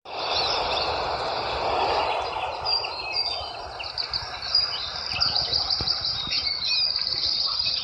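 Many birds chirping and calling together over a steady background hiss.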